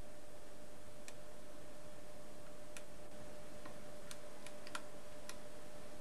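Light, irregular clicks, about eight of them and bunched together near the end, over a steady hiss and a faint steady high tone.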